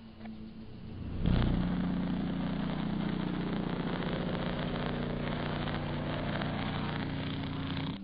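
High-voltage arc of a Jacob's ladder fed by a microwave-oven transformer. A faint transformer hum, then about a second in the arc strikes suddenly and runs as a loud, steady crackling buzz with a strong hum, cutting off abruptly.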